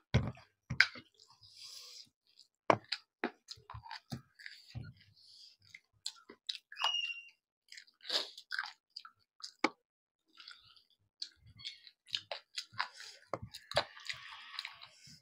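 People eating chicken leg pieces with rice: wet chewing, lip smacks and small clicks coming irregularly, with a few soft rustling breaths between them.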